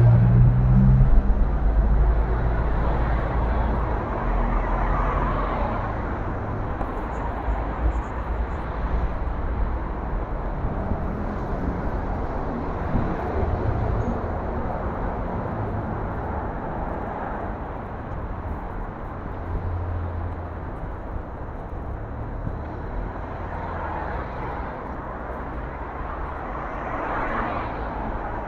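Road traffic: vehicles passing with a low engine rumble, loudest at the start and swelling again several times.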